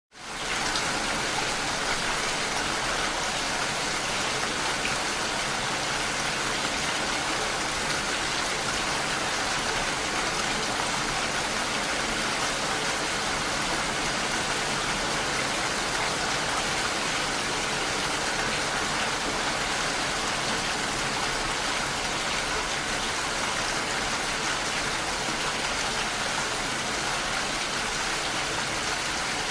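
Steady heavy rain, a dense even hiss of many drops, which comes in quickly out of silence at the start.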